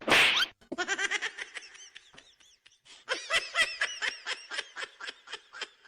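Laughter sound effect: rapid, high-pitched snickering in two runs, the second beginning about three seconds in. A short burst of noise comes at the very start.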